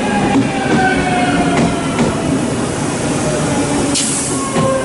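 JR 383 series electric train arriving slowly at a platform, braking: a whine of several tones falling steadily in pitch as it slows, with scattered clicks from the wheels. A short hiss comes about four seconds in.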